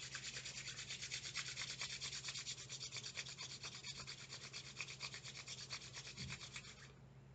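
Two palms rubbed briskly together: a faint, rapid, even swishing of skin on skin that stops shortly before the end.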